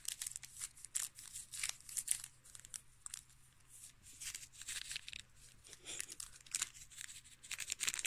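Folded paper instruction leaflet rustling and crinkling as it is handled, in many short, irregular crackles.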